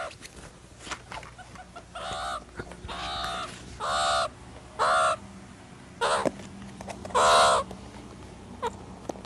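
Meerkats calling: a series of about six short, pitched calls roughly a second apart, the last and loudest a little longer.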